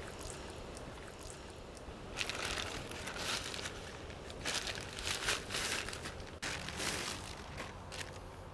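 Irregular crunching and crinkling rustle over a low steady background hum, sparse at first and busier from about two seconds in.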